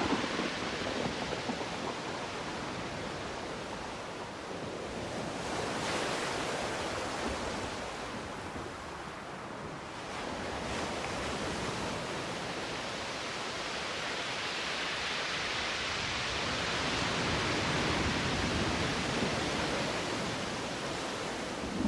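Ocean waves washing, a steady hiss of water that swells and eases slowly over several seconds.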